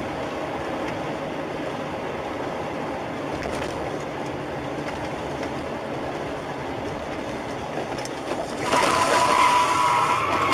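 Steady road and engine noise of a car driving, then from about two seconds before the end a tyre squeal as a car skids, louder than anything before it.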